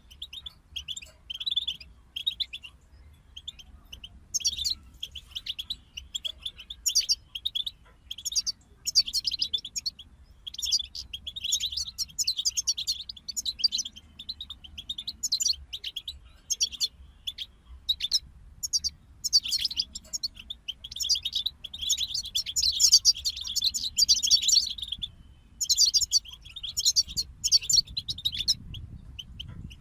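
European goldfinches singing: fast, liquid twittering and trilling phrases that come in bursts with short pauses between them.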